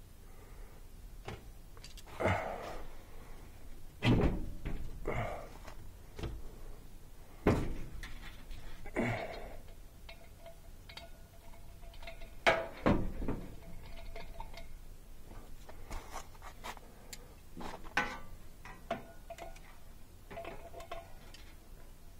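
Irregular metallic clinks and knocks with bursts of handling and rustling noise, as tools and the sheet-metal parts of an air handler's blower assembly are handled. Faint ringing tones come in around the middle.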